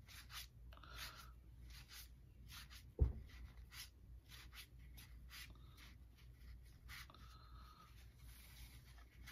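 1990 Fleer baseball cards being flipped and slid one behind another in the hands: a run of faint papery flicks and rubs. A single dull thump about three seconds in.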